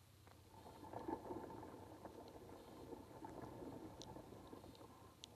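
Faint, muffled water noise picked up by a camera submerged in the canal: a low, noisy swell that rises about a second in and eases toward the end, with a couple of small high clicks near the end.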